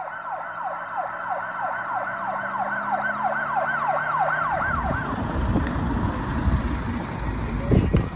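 Emergency siren in a fast yelp, sweeping up and down about three times a second, which cuts off about four and a half seconds in. A low rumble of road noise and wind follows, with a couple of knocks near the end.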